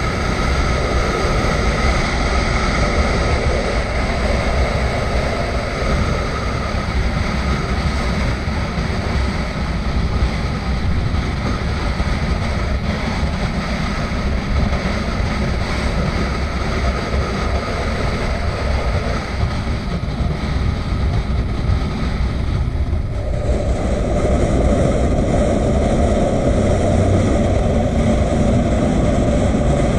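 Onboard sound of a motorcycle riding at speed: wind rushing over the camera microphone over the engine's running. About two-thirds of the way through, the sound changes abruptly and gets fuller.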